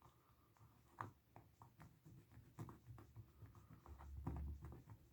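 Faint light scraping and scattered small ticks of an eraser being rubbed back and forth over the oxidised metal contacts inside an amplifier switch, with a brief low rumble about four seconds in.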